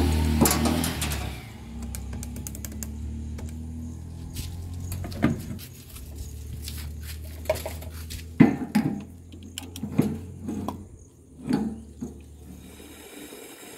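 Guitar music fading out in the first second or two. Then a low steady hum with scattered clicks and knocks from handling a tractor's fuel cap and a diesel pump nozzle; the hum stops near the end.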